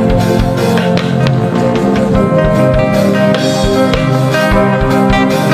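Background music with guitar over a steady drum beat.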